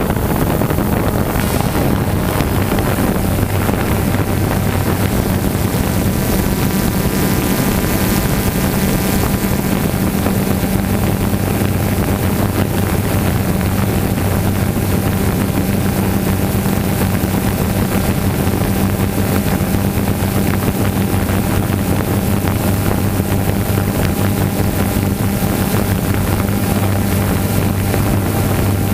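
Multirotor drone's electric motors and propellers humming steadily at an even pitch, heard from the drone's own camera, with wind buffeting the microphone.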